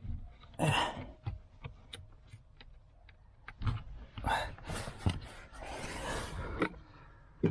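Plastic interior trim being handled and pushed into place by hand: scattered clicks and knocks with short scraping and rustling, the longest scrape about six seconds in.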